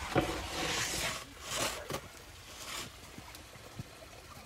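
A wooden peel being handled on a wooden table: a knock at the start, then a few short scraping, sliding sounds of wood on floured wood over the next two seconds, after which it goes quieter.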